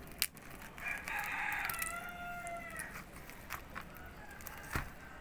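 A rooster crows once, about a second in, a single call of about two seconds that falls off at the end. A few sharp clicks come before and after it.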